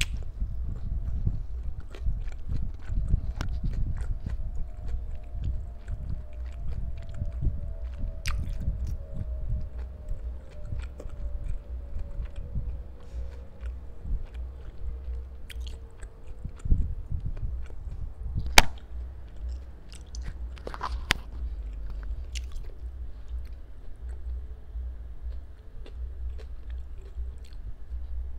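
Close-miked chewing of barbecued pork with the mouth closed: soft, steady, wet mastication with small mouth clicks, and one sharp click about two-thirds of the way through.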